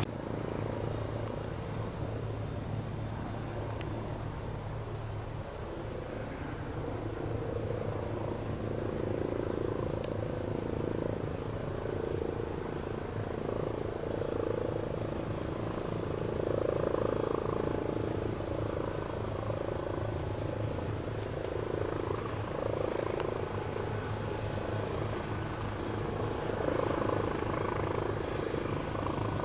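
Helicopter engine and rotor running steadily: a low hum with a mid-pitched throb that swells and fades every second or two.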